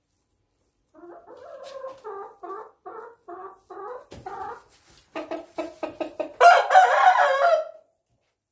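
Young rooster clucking in a run of short repeated calls that quicken, then giving a loud drawn-out crow near the end.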